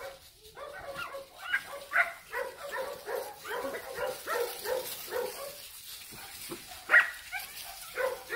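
Dogs barking over and over in a rapid run of barks, then two sharper single barks near the end. The barking is mostly the owner's house dogs barking at the puppies.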